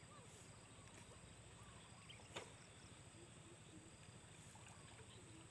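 Near silence: faint steady background hiss, with a single sharp click about two and a half seconds in.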